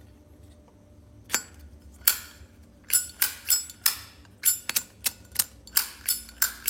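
Brass Zippo lighter being handled: a run of sharp metallic clicks, each with a brief ring, the hinged lid and flint wheel being worked. The clicks are scattered at first and come about two to three a second from about three seconds in.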